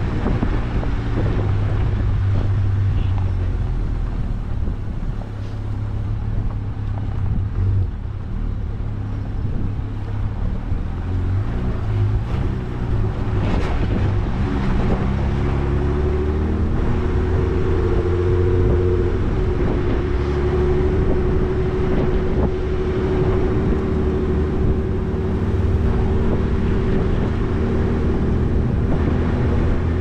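Off-road four-wheel-drive vehicle driving on a sand track, heard from outside on its body: engine running with tyre and wind noise. About halfway through the engine note rises, then holds steady.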